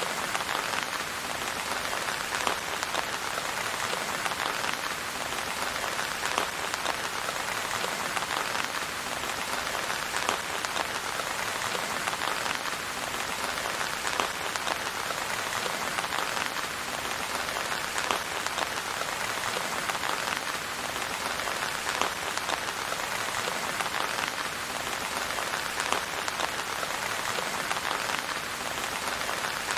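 Steady, even rain falling, with many individual drops tapping throughout; no thunder.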